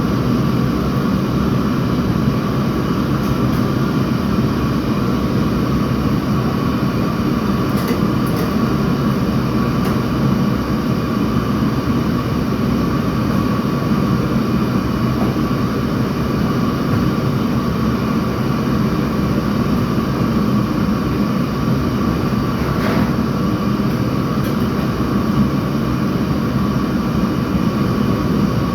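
Steady machine noise: a continuous rumble with a constant hum and no letup.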